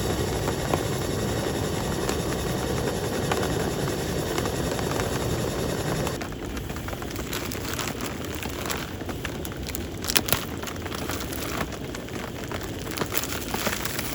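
Heavy rain coming down in a steady, dense rush. About six seconds in it changes abruptly to a thinner rain sound, with separate drops hitting sharply.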